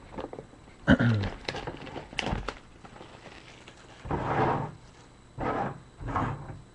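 Sealed trading card box being opened: its wrap and cardboard crinkling, tearing and rustling in several short bursts, with small clicks between.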